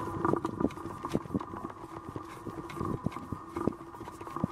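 Screwdriver backing small screws out of the metal bridge bracket inside a Sony CDP-CX350 CD changer: light, irregular clicks and taps of the tip in the screw heads, over a steady hum.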